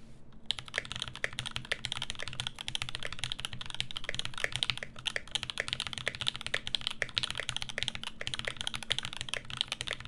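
Fast, continuous typing on a KL-90 mechanical keyboard with lubed and filmed 67g Tangerine linear switches on an aluminum plate with foam: a dense run of rapid key clacks that starts about half a second in.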